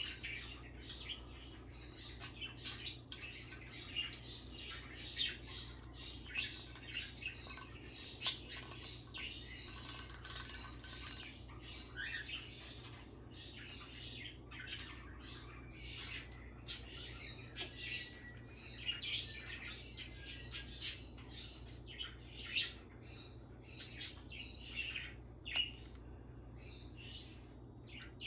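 Goffin's cockatoo giving short chirps and squawks, with many sharp clicks and taps as it picks with its beak at the pull tabs of aluminium soda cans, over a low steady hum.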